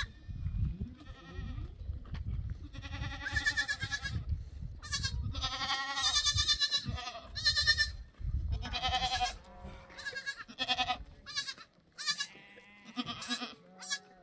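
A flock bleating: many wavering calls from several animals, often overlapping, one after another throughout. A low rumble sits beneath them for roughly the first two-thirds.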